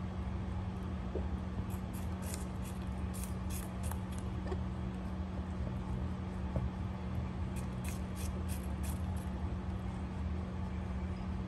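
Domestic rabbit chewing cut apple and lettuce, with clusters of quick, crisp crunches about two to four seconds in and again near eight to nine seconds, over a steady low hum.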